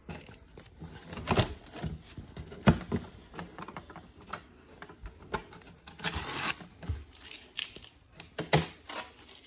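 Irregular clicks and taps of hands handling a black panel and picking at a strip of masking tape on it, with a short rasp about six seconds in.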